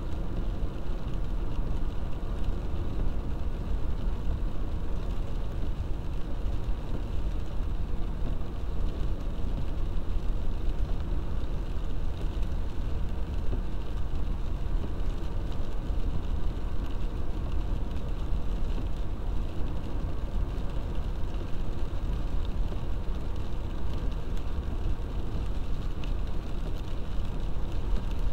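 Steady low rumble of a car driving on a wet road, heard from inside the cabin: engine and tyre noise on rain-soaked tarmac.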